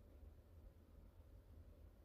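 Near silence: faint low background rumble and hiss.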